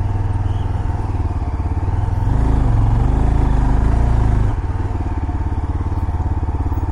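Motorcycle engine running while riding, with an even beat of firing pulses; it grows louder a little past two seconds in and eases back down about two seconds later.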